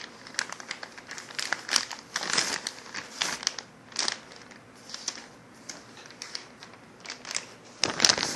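Plastic postal mailing envelope crinkling and rustling in the hands as it is opened and a book is pulled out of it: irregular crackles, loudest just before the end.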